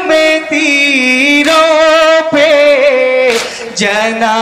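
Men's voices singing a nauha, a Shia mourning lament, holding long notes that waver in pitch.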